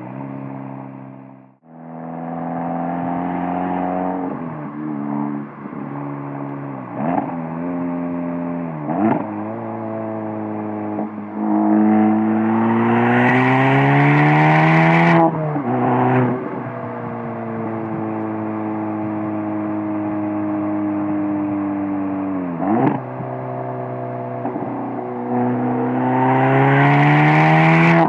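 Volkswagen Golf R's turbocharged four-cylinder heard through a Borla S-type valved catback exhaust from a bumper-mounted microphone, being driven through the gears. Twice the engine note climbs and grows louder and raspier under acceleration; the first pull ends in a sharp pitch drop at a gear change. Between pulls it settles to a lower, steadier drone, with the sound cutting out briefly about a second and a half in.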